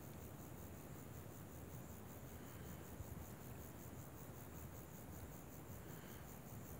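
Insects chirring: a faint, high, rapidly pulsing buzz that goes on steadily over a low rumble.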